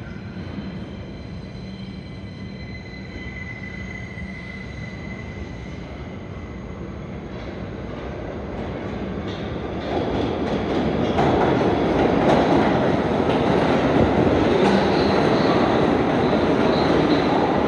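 New York City subway train rumbling on the rails, growing louder about ten seconds in, with faint high wheel squeal.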